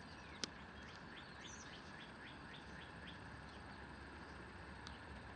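Quiet background with a small bird chirping a quick run of about eight short notes, roughly four a second. A single sharp click comes about half a second in, and a fainter one near the end.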